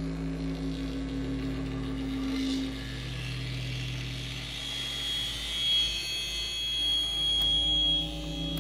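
Modular synthesizer and tape-feedback drone. Low held tones shift and fade over the first three seconds. About halfway through, a high steady whistling tone swells in, grows louder, then cuts off sharply just before the end.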